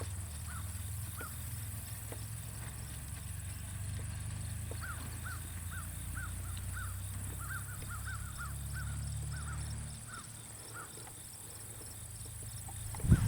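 A bird calling outdoors: a run of short, repeated chirps, a few a second, thickest in the middle, over a low rumble that fades about ten seconds in and a steady high buzz.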